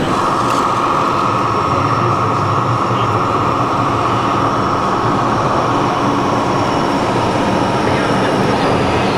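A motor running steadily with a high whine that starts suddenly and holds, sinking slightly in pitch, over a low hum.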